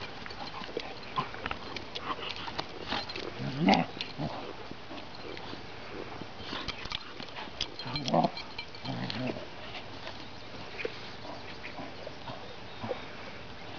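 Chocolate Labrador puppy play-growling during rough play with a bigger dog, in a few short bursts, the loudest about four and eight seconds in, with thin clicks and light scuffling between.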